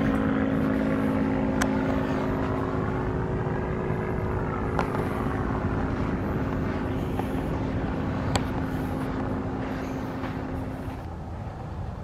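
Outdoor field recording: a steady rumbling noise with a low droning hum that fades out near the end.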